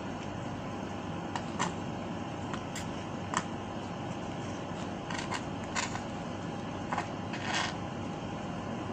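Sucking and slurping through a straw pushed into thick vanilla ice cream: short, irregular noises every second or so, the straw clogged with ice cream. A steady background hum runs underneath.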